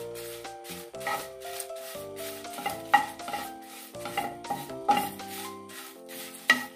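A wooden spatula scraping and turning dry red chillies and curry leaves in a nonstick frying pan as they roast: a quick run of rubbing strokes with a few sharper knocks. Background music with held notes plays underneath.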